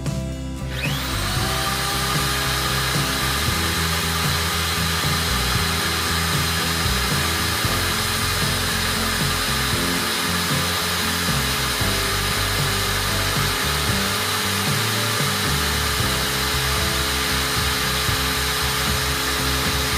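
400-watt electric drill spinning up about half a second in, then running steadily at full speed. It is powered from a battery-fed 3,000-watt inverter as a load test.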